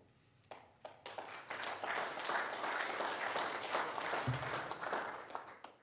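Audience applauding: a few scattered claps, then building to full applause, which fades away near the end.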